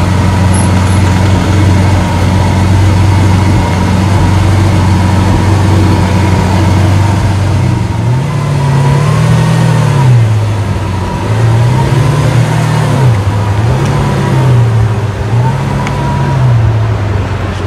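Lamborghini Aventador Roadster's V12 engine idling steadily, then revved up and back down about four times from around eight seconds in.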